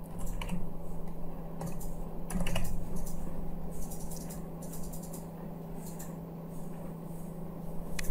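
Computer keyboard being typed on in short, irregular keystroke clicks, over a steady low hum.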